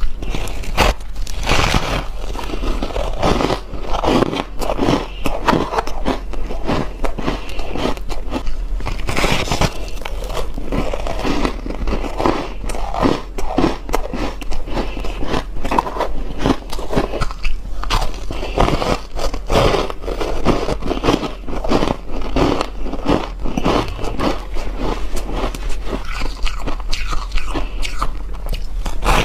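Biting and chewing frost-coated ice blocks close to the microphone: dense, continuous crisp crunches and crackles, one bite after another.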